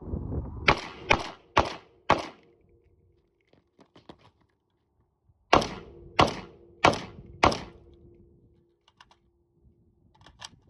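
Century Arms VSKA AK-pattern rifle in 7.62×39mm fired semi-auto in two strings of four shots, about two a second. There is a pause of about three seconds between the strings. A faint steady tone lingers after each string.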